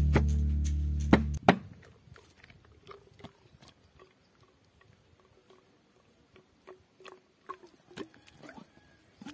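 Acoustic guitar music stops about a second and a half in. Then come faint, scattered taps and soft wet sounds as cooked fish pieces are shaken out of a bamboo tube onto a banana leaf.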